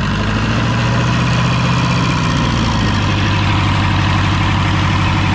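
Four-cylinder tractor engine of about 100 HP, swapped into a Mahindra tractor and running uncovered with the hood off, running steadily at idle.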